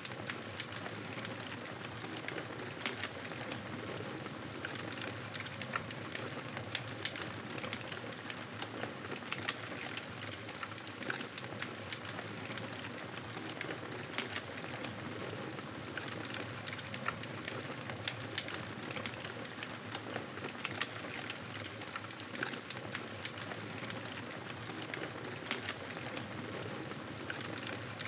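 Campfire burning: a steady hiss with frequent irregular crackles and pops.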